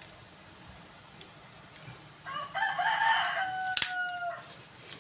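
A sharp wooden click nearly four seconds in as the popsicle-stick hidden blade snaps out along the forearm. Under it, a long crowing call of about two seconds sits in the background.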